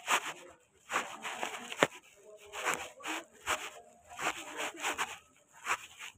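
Footsteps scuffing on gritty dirt ground, about one step a second.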